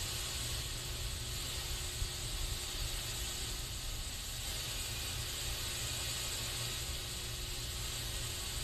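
Aerosol spray can hissing continuously, a steady even spray with no breaks, over a low rumble.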